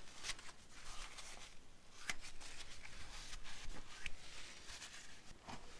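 Faint rustling and scraping of a paper towel and fingers working at a bush bore in a metal tractor transmission housing, with a few small clicks and one sharper click about two seconds in.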